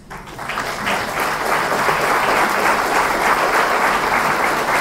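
Audience applauding, starting suddenly and swelling over the first second into steady, sustained clapping.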